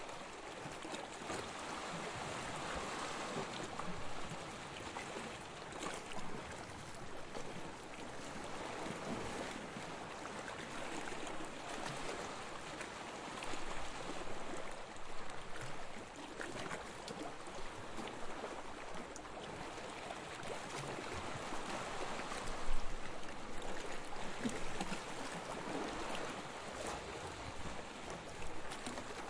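Gentle sea waves washing onto a beach: a continuous wash of water that swells and ebbs every few seconds.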